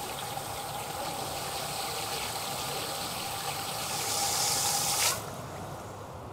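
A rice washing machine churns water and rice in its stainless steel tank: a steady rushing of water with a steady high tone under it. The sound swells, then cuts off suddenly about five seconds in, leaving quieter running water.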